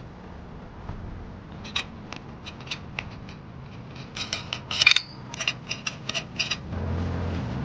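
Metal clicks and clinks of a wheel being taken off a car: a wrench working the lug nuts and the nuts and wheel being handled. There are scattered single clicks at first, then a busier run of clinks and rattles in the middle.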